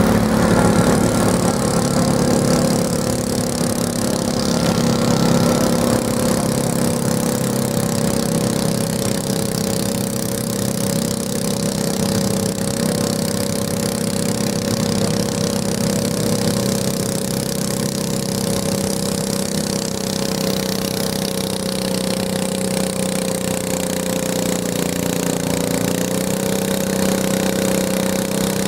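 Garden tractor engine running at a steady speed, its pitch holding level with a slight shift near the end.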